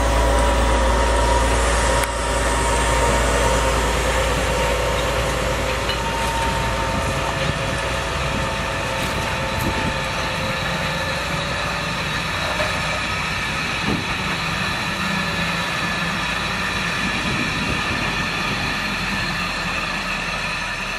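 Railway works train passing close by. First the diesel engine of a Vossloh G 1206 locomotive runs with a steady hum. After a cut about two seconds in, laden ballast hopper wagons roll past with a steady rolling noise.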